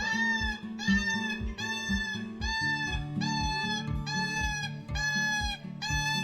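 Background music with a steady beat of about two thumps a second, a bass line, and a high arching note repeated on each beat.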